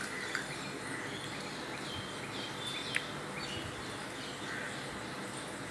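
Steady background hiss of room ambience with a few faint, short, high chirps and one small click about three seconds in.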